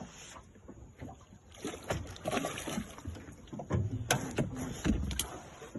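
Irregular knocks and scraping in a small fishing boat as line and gear are handled over the side, the sharpest knocks about four and five seconds in.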